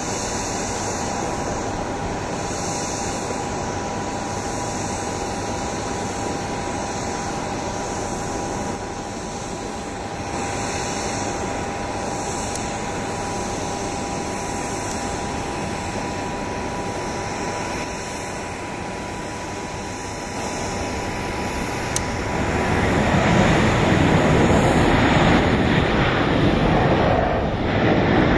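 Boeing 737-800's CFM56-7B jet engines, heard at a distance on approach and through touchdown: a steady rushing hum with a faint whine. About 22 seconds in it turns louder and rougher for the rest of the rollout.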